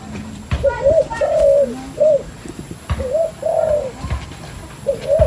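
A dove cooing: a phrase of several rising-and-falling coos, one of them longer, repeated three times.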